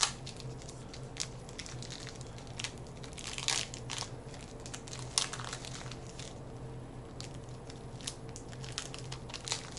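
Packaging crinkling and crackling as a dog treat is handled, in irregular bursts with a few louder crackles, over a steady low hum.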